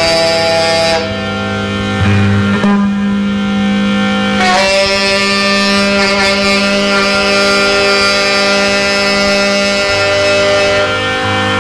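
Slow droning music: a harmonium holds sustained chords that shift every few seconds, with low bass notes underneath.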